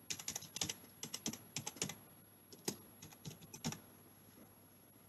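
Typing on a computer keyboard: quick keystrokes in three short bursts, stopping a little before the end.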